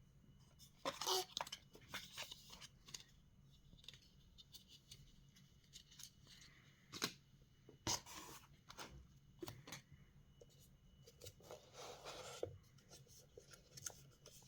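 Faint, intermittent rustling, scraping and tearing of paper and cardboard packaging being opened by hand, with scattered short clicks and taps. The sharpest taps come about seven and eight seconds in.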